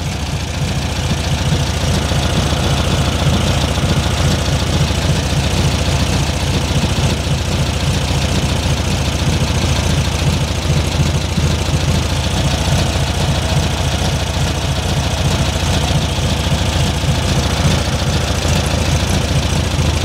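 1970 VW Beetle's air-cooled flat-four engine idling steadily at around 850 rpm, with an even pulsing beat. This is the stage of setting the carburettor's idle mixture screw for the highest idle speed.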